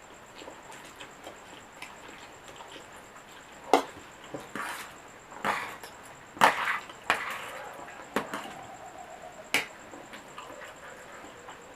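Close-up eating of fried instant noodles: a few sharp clicks of utensils and short, noisy mouth sounds of slurping and chewing, spaced irregularly a second or two apart.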